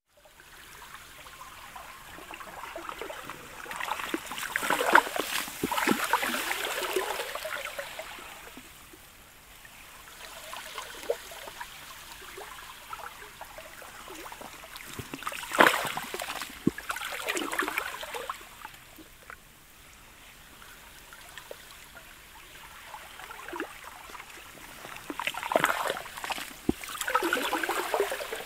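Sludge and pancake sea ice lapping the shore. Three slow washes come in about ten seconds apart, each a surge of water full of sharp clicks from the ice, with quieter trickling between them.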